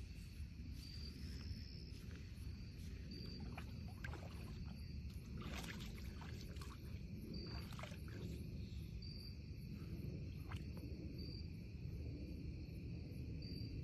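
Young white-tailed deer wading in shallow lake water, its legs splashing and sloshing in a few short bursts, the busiest about halfway through. Short high chirps repeat in the background over a steady low rumble.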